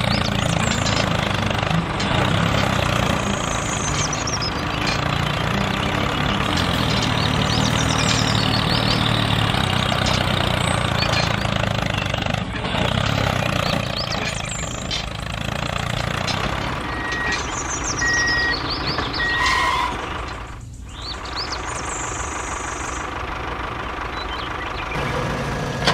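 Heavy vehicle engine running steadily, played for toy tractor and excavator play, with three short high beeps a little after halfway.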